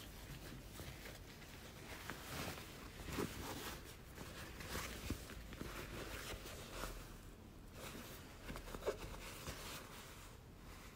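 Canvas tote bag being handled and unfolded: irregular fabric rustling and brushing, with a short sharp click about nine seconds in.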